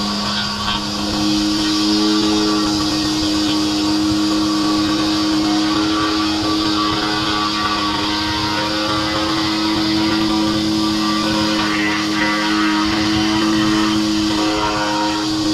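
Pressure washer running steadily: a constant motor drone under the hiss of the high-pressure water spray.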